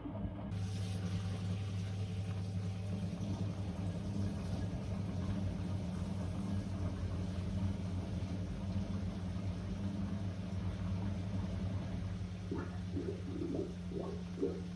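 Blomberg WA391 washing machine running a 90 °C boil wash: a steady mechanical hum with water rushing through it. Near the end, a quick irregular gurgling or sloshing joins in.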